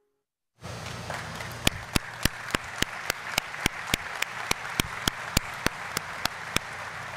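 Audience applauding. The applause starts suddenly about half a second in, with one clapper close to the microphone standing out as sharp claps about three times a second.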